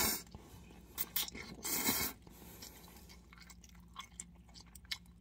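A person slurping instant ramen noodles, with a loud slurp at the start and another about two seconds in, then chewing with small wet clicks.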